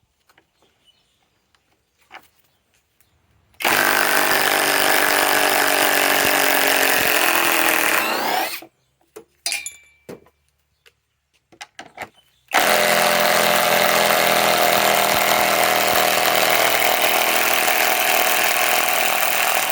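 Bauer brushless 1/2-inch cordless impact wrench running and hammering in two long runs of about five and seven seconds, with a quiet pause between them broken by a few small clicks.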